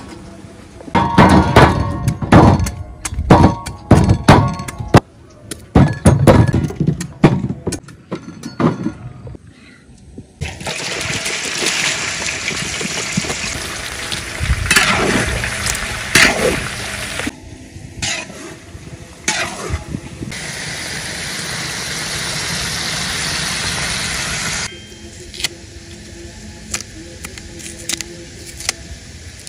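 Green bananas snapped off the bunch with sharp cracks, then chopped chicken sizzling steadily as it deep-fries in hot oil in a wok, and near the end the quieter clicks and scrapes of a green banana being peeled by hand.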